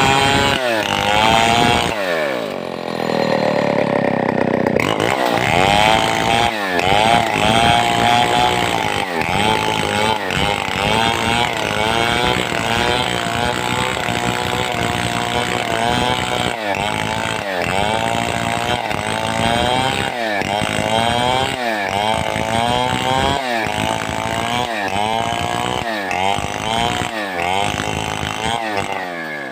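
Large two-stroke chainsaw of the Stihl 070 class under load. Its engine speed sags and climbs back in a steady rhythm, about once every second and a half, as the saw is rocked back and forth through a cut. There is one longer, deeper drop in speed a few seconds in.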